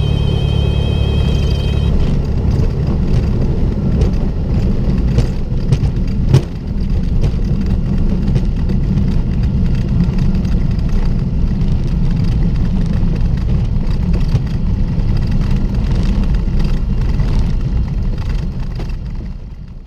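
Cessna 210L's engine and airframe noise from the cockpit, with a warbling high warning tone for the first couple of seconds, typical of the stall-warning horn in the landing flare. After that comes a steady rumble broken by many knocks and jolts, the loudest about six seconds in, as the plane rolls over the grass strip. The sound fades out near the end.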